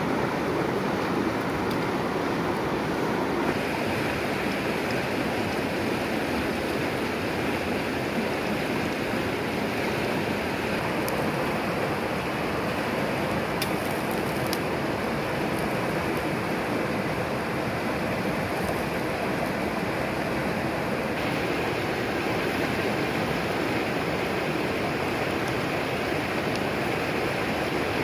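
Steady rush of a fast, shallow river running over rocks in whitewater rapids.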